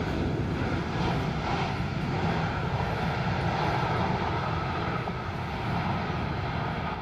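Jet engines of an AirAsia Airbus A320-216 (CFM56) running at takeoff thrust: a steady, loud rumble heard across the airfield.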